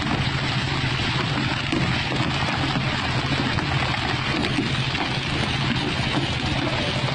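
A fishing boat's engine running steadily under a constant rush of water and wind noise.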